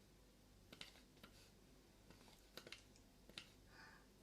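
Near silence broken by faint, irregular light clicks and taps, about eight of them.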